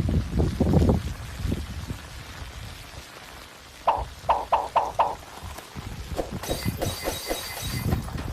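Molten lava crackling and popping as its crust cracks and breaks: low rumbling pops, a quick run of five sharper pops about four seconds in, then more crackling with a brief hiss near the end.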